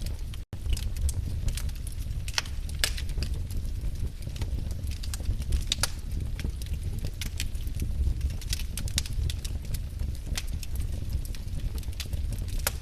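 Wood fire crackling: irregular sharp pops and snaps from burning logs over a steady low rumble of the flames. The sound cuts out for an instant about half a second in.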